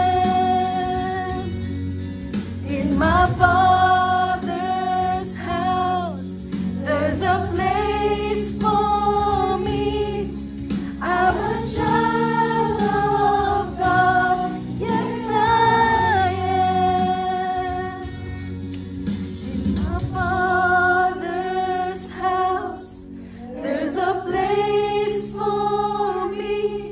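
Christian worship song: voices singing phrases of long, wavering held notes with short breaks between them, over a steady instrumental accompaniment.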